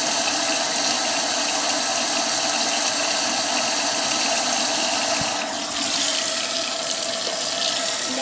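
Water running from a tap, a steady rushing hiss that grows brighter for a couple of seconds a little past the middle.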